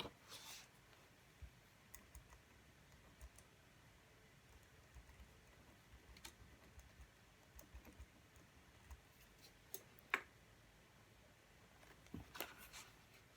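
Faint computer keyboard typing: scattered key clicks, a few at a time with pauses between them, over quiet room tone. The loudest single click comes about ten seconds in, and a short run of clicks follows near the end.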